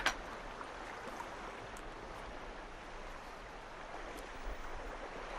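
Steady rushing of water, the wash of the sea, with a single brief click at the very start.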